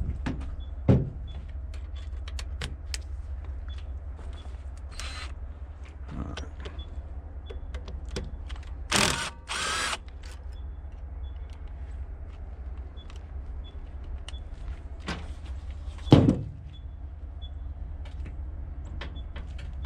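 Hands-on tool work on metal: scattered light clinks and knocks over a steady low rumble. There are two heavy thumps, about a second in and near 16 seconds, and two short, loud bursts of a power tool around the middle.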